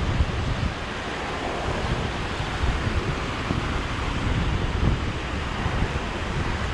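Steady rushing of water pouring from a canal overflow, with wind buffeting the microphone in gusts.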